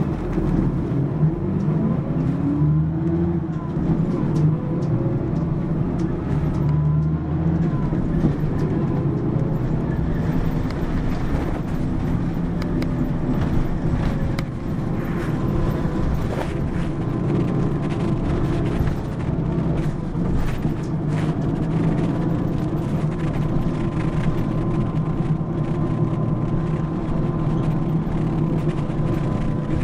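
Mitsubishi Fuso Aero Midi-MK (PA-MK25FJ) city bus's diesel engine under way. The engine note rises in the first few seconds as it accelerates, then runs steadily at road speed with tyre and road noise.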